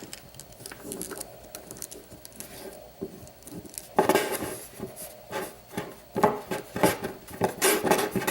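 Small metallic clicks and rattles of a mortise lock cylinder being handled with its key to lock it back up. The clicks are faint at first, grow louder about four seconds in, and become a quick irregular run of two or three a second near the end.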